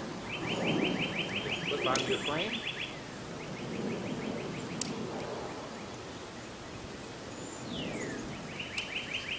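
A songbird singing fast trills of repeated notes, the last one opening with a downward-sliding whistle, over the rustle of tent nylon being handled. There are two sharp clicks, about two and five seconds in, like plastic tent clips snapping onto the poles.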